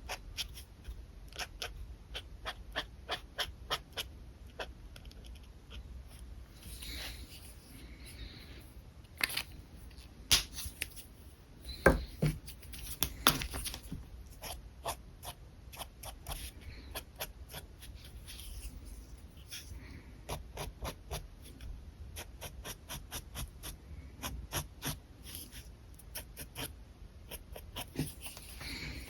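Pen on paper: quick, short sketching strokes scratching and ticking several times a second, with a few louder knocks around ten to fourteen seconds in.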